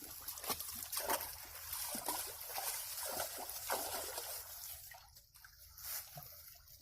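Water splashing and trickling in a dense, irregular run of small splashes that thins out after about five seconds.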